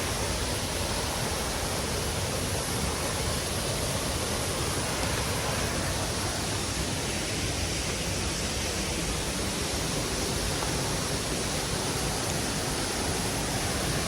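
A waterfall, a close, steady rush of falling water that stays even and unbroken throughout.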